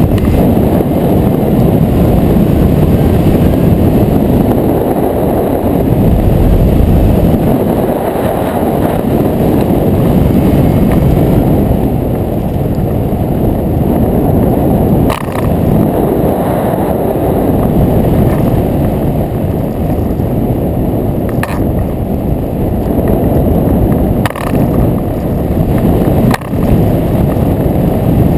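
Airflow in hang-glider flight buffeting the camera's microphone: a loud, steady low rush of wind noise, with four brief knocks in the second half.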